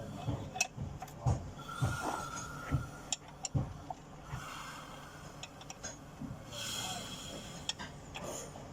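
Toyota 1ZZ four-cylinder engine running with irregular knocks, which the mechanic puts down to a split flywheel.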